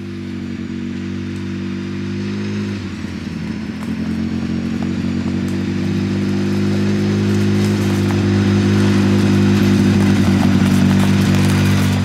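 Side-by-side UTV engine running at a steady speed as the vehicle drives up a dirt trail, growing louder as it comes close.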